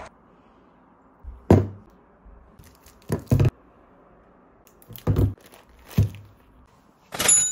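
About six dull knocks as grocery items, an ice cream tub and a bottle among them, are set down one after another on a carpeted floor. The last, near the end, is brighter, with a short ring.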